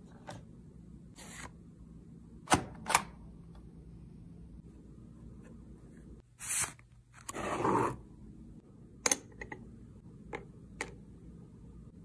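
Hands handling a small wooden chest, paper and card: a few sharp clicks and knocks, and two short scraping rustles near the middle, over a faint steady low hum.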